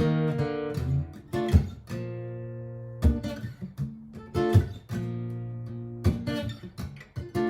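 Steel-string acoustic guitar, a Martin GPCPA4, strummed in chords: sharp strokes with ringing chords held between them, some quick runs of strokes and a few longer sustained chords.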